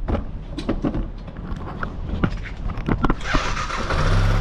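A few clicks and knocks, then about three seconds in the single-cylinder engine of a Yamaha Factor motorcycle is started and catches, settling into a steady idle. It is the first run after its valve clearances were adjusted to cut a tapping noise.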